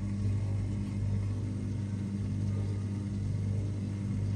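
Dishwasher drain pump running with a steady, even low hum and no grinding, banging or buzzing: the clean, stable sound of a pump that has no fault.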